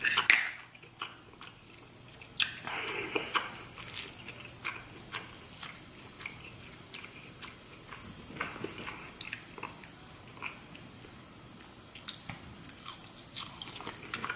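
Close-mouthed chewing of buttery lobster meat, with many short wet smacks and lip clicks at an irregular pace, the loudest right at the start.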